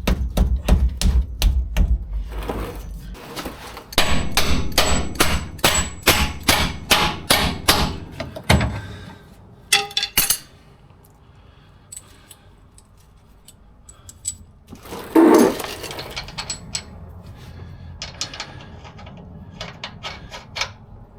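Hammer blows on steel suspension hardware: a quick run of strikes, then a longer run of about three to four blows a second with a faint metallic ring. A single louder knock comes around two-thirds of the way through, followed by scattered light taps.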